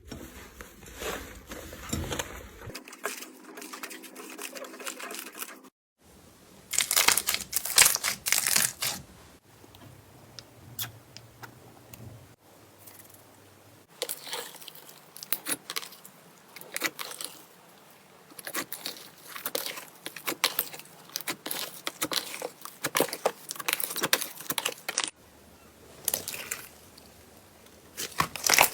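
Slime being squeezed and stretched, giving dense runs of crisp crackling and popping, in several short clips with brief breaks between them.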